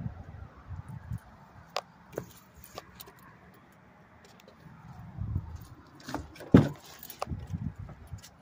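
Scattered light clicks and rustles of handling, with low rumbling thumps, and one sharp click about two-thirds of the way through.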